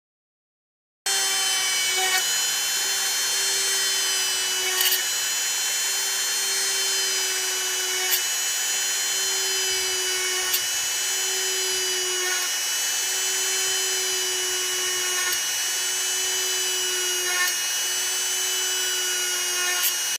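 Electric power drill motor running steadily at one speed with a high whine and a few light clicks, starting abruptly about a second in.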